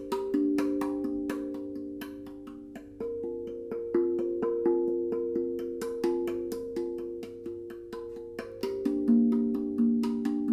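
Zen-Percussion Guda NEO 8 stainless steel tongue drum with eight tongues tuned to an "African" scale (G Bb C D F G Bb C), struck with the fingertips of both hands. A quick, steady rhythm of notes, each with a sharp attack and a ringing tone that carries over into the next.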